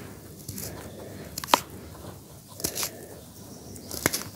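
Hands crumbling and rubbing grainy charcoal grit and small lumps between the fingers: a soft gritty rustle with a few sharp crunches, the loudest about a second and a half in.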